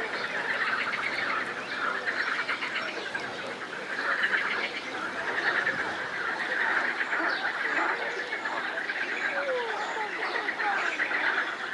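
A dense, steady chorus of frogs croaking in rapid pulsed calls, with short rising and falling calls mixed in.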